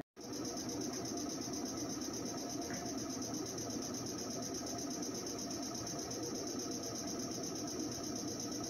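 Meitetsu electric train standing at the platform, its onboard equipment giving a steady, unchanging hum with a thin high whine above it.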